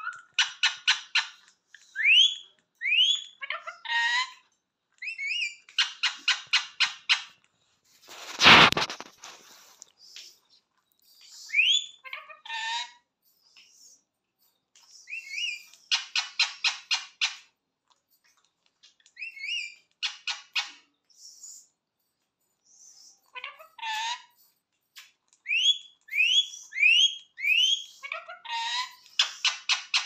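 Caged rose-ringed parakeet calling: bursts of rapid repeated harsh notes about a second long, alternating with short rising whistled chirps, four in a quick row near the end. A loud thump about eight seconds in.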